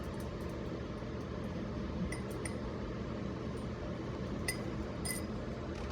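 Four light clinks with a short ring, typical of glass containers or a spoon knocking against glass, over a steady low background hum.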